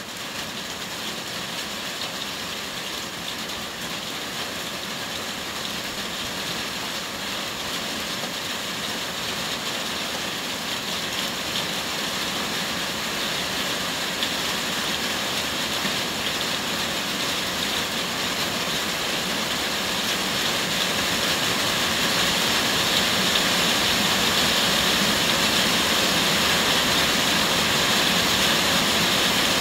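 Heavy rain falling in a steady hiss, growing gradually louder and heavier.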